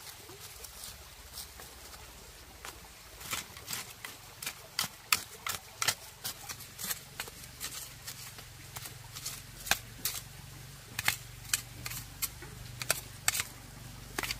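Small metal hand hoe scraping and chopping into dry, stony soil while weeding between seedlings. It makes sharp, irregular scrapes, sparse at first and then coming about once or twice a second from a few seconds in.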